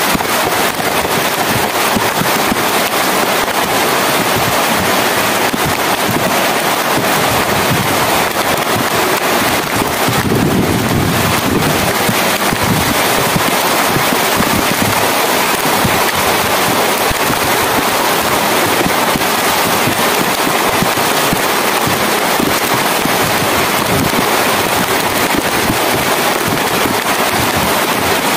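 Steady rain falling, a dense hiss full of small crackling drop impacts, with a brief deeper swell about ten seconds in.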